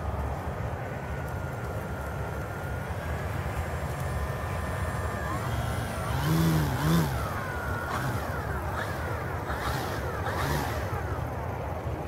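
Electric RC Cessna 182 model taxiing in close, its motor and propeller whirring, with two short throttle bursts rising and falling about six and seven seconds in, then several gliding whines as the motor speed changes. A steady low rumble runs underneath.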